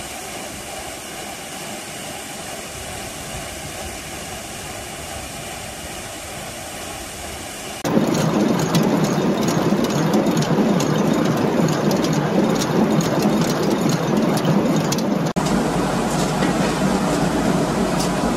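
A steady rush of flowing water. About eight seconds in it gives way to a much louder traditional water-powered millstone running and grinding grain, with a rapid, irregular clatter as the grain feeds down into the stone.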